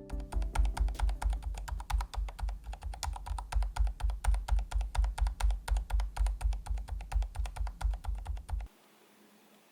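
Typing on a low-noise mechanical keyboard with red (linear) switches, recorded with the Comica LinkFlex AD5 audio interface's de-noise turned on: a steady run of soft keystrokes, several a second. The typing stops abruptly near the end.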